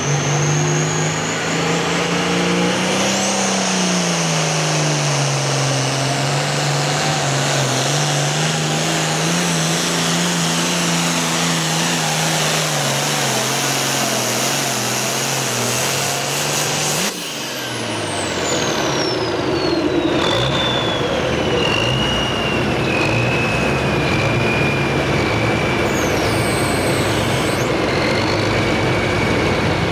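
Turbocharged diesel engine of an International pulling tractor running at full power while hauling a sled, with a high turbo whine above the engine note that wavers in pitch. About seventeen seconds in, the engine note suddenly drops as the pull ends, and the turbo whine falls steadily in pitch as it spools down.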